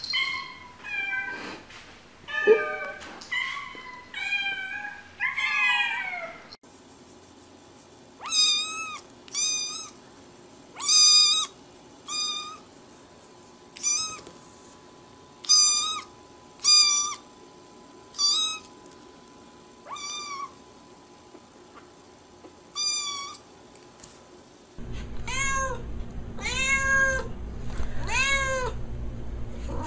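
Cats meowing. First come meows that swing up and down in pitch, then a kitten's high, short mews about every second or two, then an adult white cat meowing repeatedly, about once a second.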